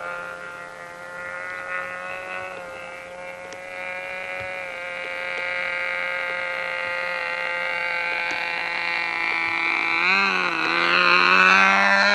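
Radio-control model airplane engine running at high throttle, a steady whine that grows louder as the plane comes in on a low pass. About ten seconds in the pitch wavers and dips, then climbs higher as the plane comes close.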